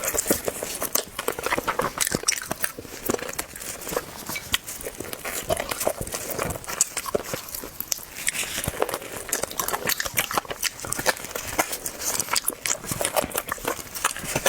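Close-up eating sounds of a person biting and chewing braised pig's trotter: a dense, irregular run of wet smacks and sharp clicks of the mouth.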